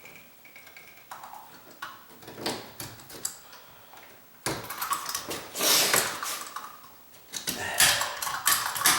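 Sheetrock knife scraping and cutting at the wood edge of a door jamb's strike plate opening: a few light clicks, then a run of raspy scraping strokes from about halfway.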